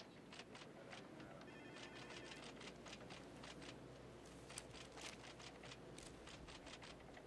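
Near silence: quiet room tone with scattered faint clicks and paper rustles as brochure pages are handled, and a brief faint electronic telephone trill about a second and a half in.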